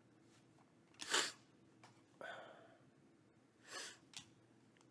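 A man's short, sharp breaths through the nose, three of them about a second or so apart, the first the loudest, with a light click near the end.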